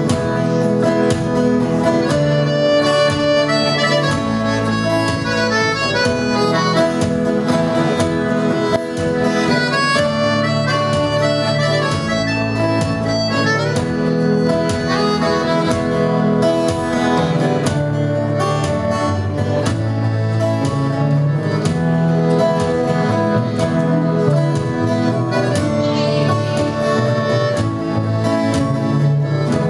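Live acoustic band playing an instrumental passage, with guitar, accordion and double bass.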